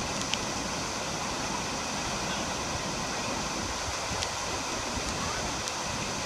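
Steady rushing of a waterfall, water pouring down without a break, with a few faint ticks over it.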